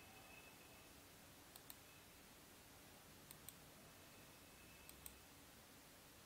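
Faint computer mouse clicks: three double-clicks about a second and a half apart, over near-silent room tone.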